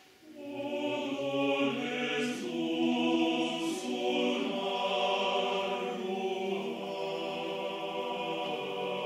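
Mixed choir of men's and women's voices singing in Basque without accompaniment. The choir enters together just after the start and holds sustained chords.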